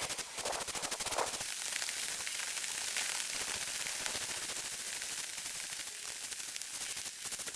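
Aerosol can of Flex Seal rubber sealant spraying: a steady hiss, after a second or so of rapid rattling clicks.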